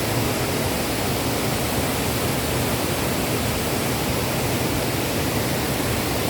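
Waterfall rushing in a steady, loud, even roar of falling water.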